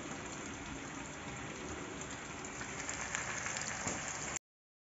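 Flour-coated chicken leg pieces deep-frying in hot oil: a steady sizzle with scattered crackles, growing a little busier near the end before cutting off suddenly.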